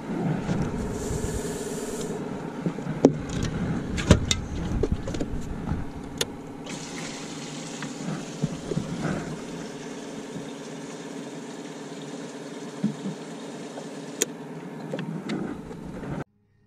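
A steady motor hum runs under several sharp knocks and clunks of gear being handled in a fishing boat, the loudest about four seconds in; the sound cuts off suddenly near the end.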